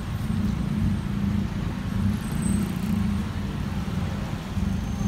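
Steady low engine rumble of road traffic, with a slight pulsing.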